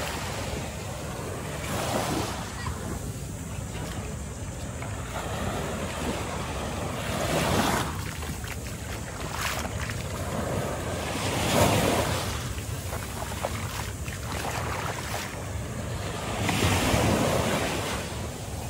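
Small waves breaking and washing up onto a sandy beach, the surf swelling every four to five seconds, with wind buffeting the microphone.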